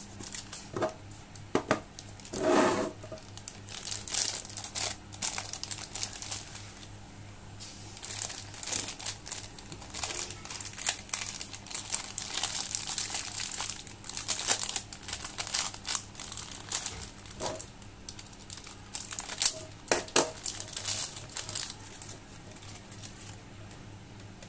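Thin clear plastic bag crinkling and rustling in irregular spurts as a USB cable is worked out of it by hand, with a few louder handling noises among them; it dies down near the end once the cable is free.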